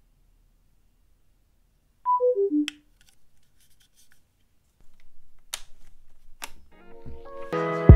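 Bluetooth speaker's electronic chime: four short tones stepping downward about two seconds in, typical of the speaker powering off after a held power button, followed by a click. Background music fades in near the end.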